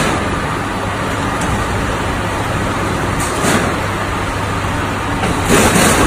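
Automatic HVAC duct production line running, with a steady machine hum and noise as a steel sheet is conveyed through it. Two brief louder surges of noise come through, about three and a half seconds in and near the end.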